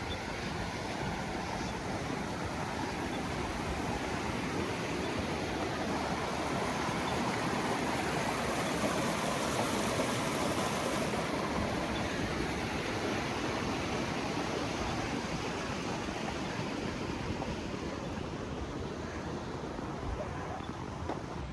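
Creek water rushing, a steady noise that grows louder towards the middle and then eases off.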